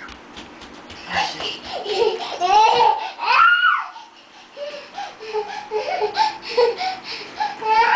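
A young child laughing in quick giggling pulses, rising to a high squeal about three and a half seconds in, then shorter, lower giggles and babble.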